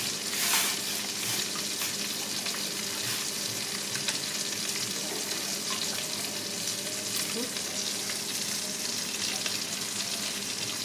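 Pan sauce of chicken broth and cooking cream with butter and garlic, sizzling and bubbling steadily over the heat.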